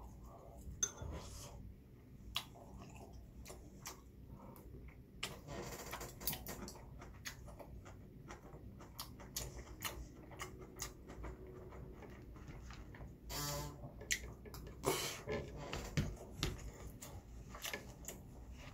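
Scattered light clicks and taps of metal chopsticks and a spoon against bowls, with quiet chewing in between.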